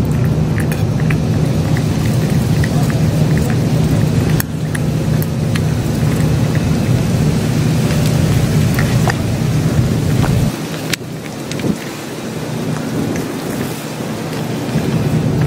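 Rain falling in strong wind, with the wind buffeting the microphone as a heavy low rumble that drops away about ten seconds in and builds back near the end. Scattered drips and taps run through it.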